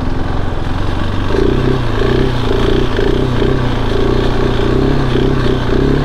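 KTM 690 Enduro R's single-cylinder engine running under throttle while riding, its pitch stepping up a little over a second in and then holding steady.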